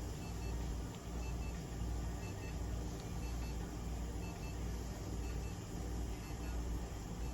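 Steady low hum with an electronic beeper sounding short double beeps about once a second, like a medical device's alert.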